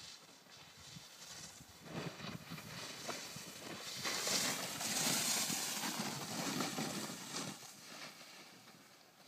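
Snowboard edge scraping and hissing over hard-packed snow as the board carves turns. It swells to its loudest about four to six seconds in, then fades away.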